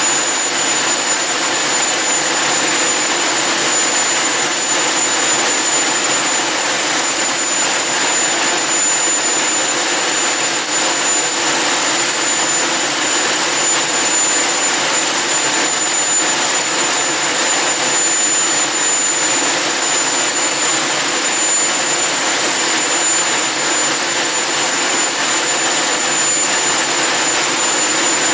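Homemade turbojet engine running at a steady speed on test: a loud, even rush of jet noise with high, constant-pitch turbine whines above it.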